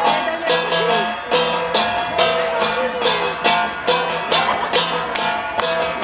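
Ensemble of flat bronze gongs (gangsa) beaten in a steady, repeating rhythm of about two to three strikes a second, each strike ringing on.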